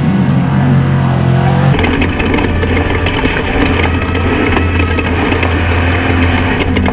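Off-road race vehicle's engine running hard, its pitch shifting in the first couple of seconds, then a harsher rattling, crunching noise over a steady engine drone from about two seconds in.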